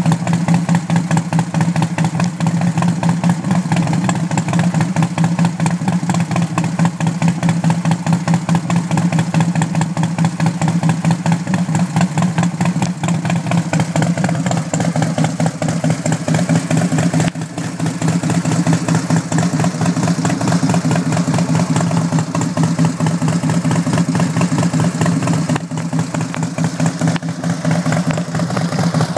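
Harley-Davidson V-twin engine running steadily through a 2-1-2-1 exhaust, its firing pulses coming as a fast, even beat.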